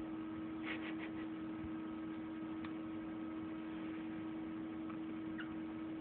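Steady electrical hum, with a few faint short clicks about a second in and again near the end.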